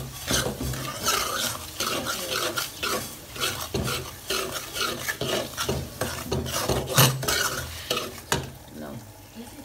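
A metal spoon stirring and scraping a thick almond and semolina halwa mixture as it sizzles in a metal frying pan, in repeated strokes, with one sharper knock of spoon on pan about seven seconds in. The stirring eases off near the end.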